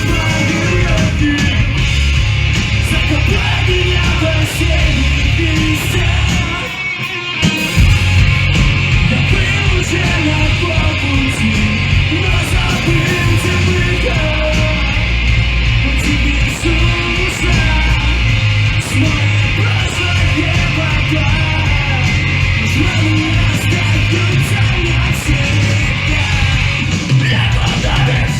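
A live punk/emo band playing loud through the PA: distorted electric guitars, bass and drums with shouted, yelled vocals. About seven seconds in the low end drops out for roughly a second, then the full band crashes back in.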